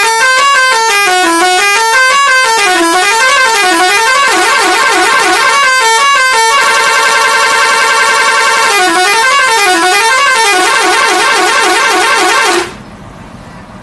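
Indonesian 'telolet' bus horn, a multi-tone musical horn, playing loud stepping melodic runs up and down, holding a steady chord for a couple of seconds in the middle, then more runs. It cuts off suddenly near the end, leaving quieter vehicle noise.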